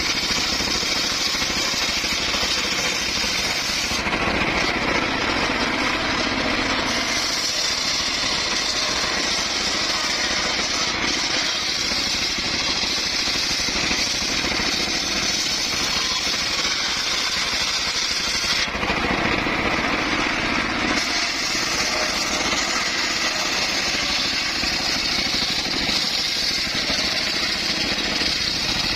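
Circular saw running steadily while cutting wood, a loud continuous machine noise. Its sound changes twice for two or three seconds, about four seconds in and again near nineteen seconds, turning lower and duller.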